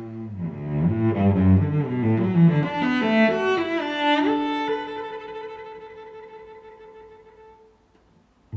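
Background music on bowed strings: low notes climbing in a run, then a few held notes that slowly fade away near the end.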